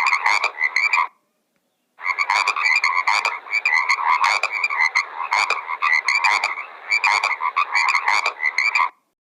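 Animal calls repeated in quick pulses, a dense, continuous chorus that breaks off for about a second near the start, then resumes and stops just before the end.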